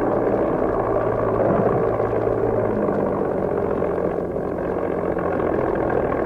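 Slow, droning background score of low held tones that shift every second or two over a dense, steady wash.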